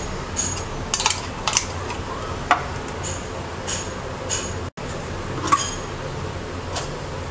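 Electric blender grinding onion, green chilies, garlic and ginger into a paste with a little water, hard pieces clinking against the jar over a steady motor hum.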